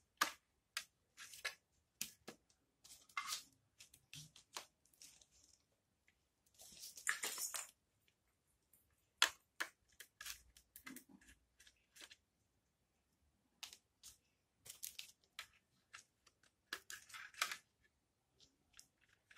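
Scattered small clicks, taps and scrapes of a solar light being taken apart by hand: a screwdriver working the circuit board's screws while the plastic housing, battery and board are handled. One longer scrape of about a second comes about a third of the way through.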